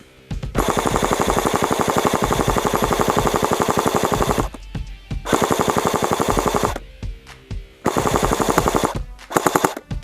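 Airsoft gun firing on full auto in rapid, even shots: one long burst of about four seconds, then three shorter bursts.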